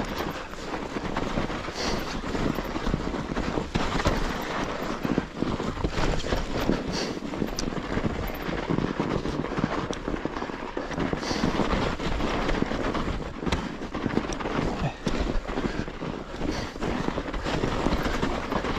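Mountain bike ridden downhill on a snowy trail: steady rolling noise of the tyres on snow, with frequent clicks and rattles from the bike.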